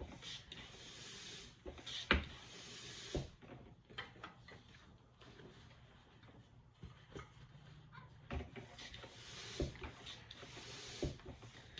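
Scattered light knocks, clicks and rubbing as hands work a fat-tire bike tire and inner tube on its rim, with a faint steady low hum underneath.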